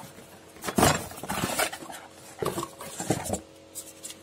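Hands rummaging in a cardboard box and pulling out a plastic-wrapped part: rustling of plastic and cardboard with a few light knocks, the loudest about a second in.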